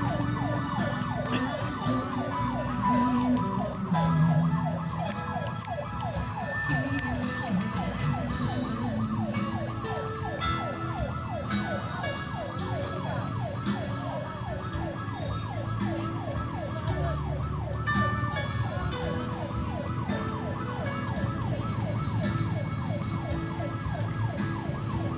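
A vehicle siren yelping without a break, its pitch sweeping several times a second, over a low rumble.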